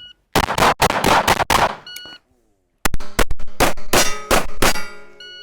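Shot-timer beep, then a rapid string of pistol shots. After a second beep comes another fast string of shots, each followed by the ringing clang of steel targets being hit.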